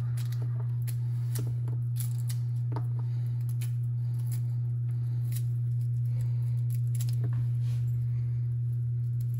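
Raw white onion being cut and pulled apart into rings: scattered light, crisp clicks and snaps at an irregular pace, over a steady low hum.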